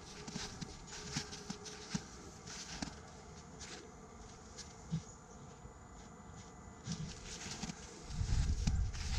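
Footsteps crunching in snow, irregular, about two a second at first and sparser in the middle. A low rumble comes in near the end.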